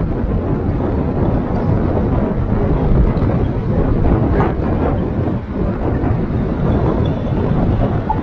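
Steady low rumble of road and wind noise from a Kia K3 driving along a city street.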